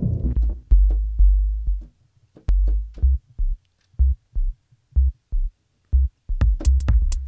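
Electronic bass-loop samples played back in the Kontakt 5 sampler, triggered in short starts and stops: deep bass notes with clicks, cut off between each key press. From about six seconds in, crisp, bright percussion ticks join in over a steadier bass groove.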